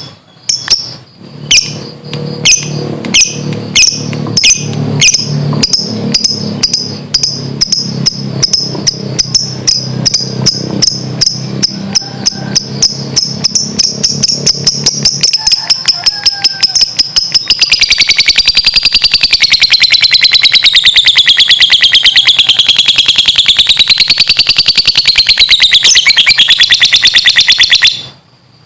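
Lovebird's ngekek song: sharp, high chirps repeating faster and faster until, about two-thirds of the way in, they run together into a long, fast rattling trill wavering in pitch, which stops abruptly near the end.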